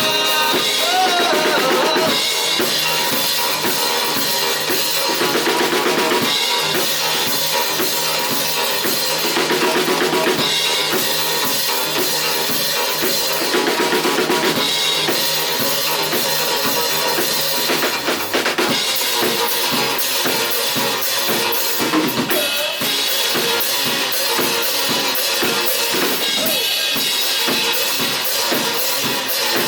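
Rock band playing live through an instrumental break. The drum kit's kick and snare drive a steady beat, with bass and guitar underneath.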